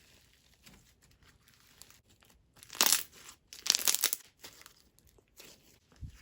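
Hands pressing and squeezing a thick slime with a crunchy, sprinkle-covered top, giving crinkly crackles with two louder bursts about three and four seconds in.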